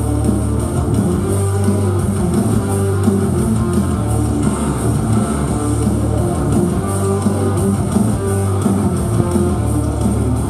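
Rock music with guitar and bass, running loud and unbroken.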